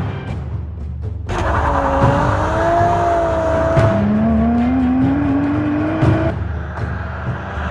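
Lotus Exige Sport 380's supercharged V6 engine running under load, its pitch rising steadily as it pulls up through the revs, over background music. The sound changes abruptly twice, about a second in and again about six seconds in.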